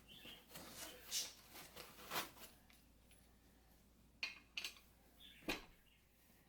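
Scattered sharp clicks and knocks of hard plastic chair parts being handled, a handful of them with quiet gaps between. This is typical of caster wheels being pushed into a gaming chair's five-star base.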